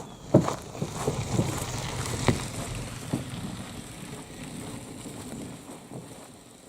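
Canoe strapped on a wheeled canoe carrier, rolling over a rough logging road. Several sharp knocks and rattles come in the first three seconds, then a steady rolling noise that slowly fades.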